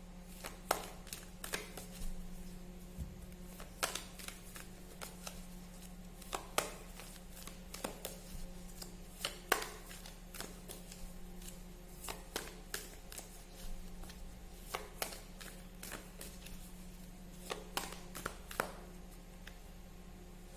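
Tarot cards being handled and laid out on a table: irregular light taps and flicks of card stock, some louder than others, over a steady low hum.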